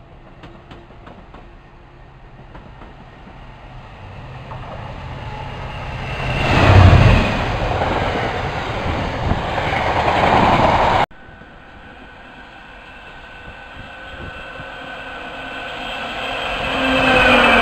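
A container freight train passes at speed, its sound building to a peak about seven seconds in, followed by the rumble and clatter of the container wagons, which cuts off abruptly about eleven seconds in. A second train, a pair of class 86 electric locomotives, then approaches, growing louder near the end.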